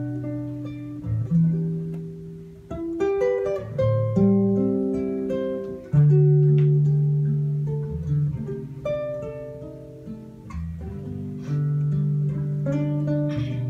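Acoustic guitars playing a slow piece, fingerpicked notes ringing out over low bass notes, with a louder strummed chord about six seconds in.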